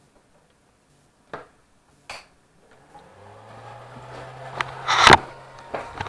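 Handling noise: two light clicks, then from about three seconds in a low steady hum under a faint rising hiss, and near the end loud knocks and rustles as the camera is picked up and moved.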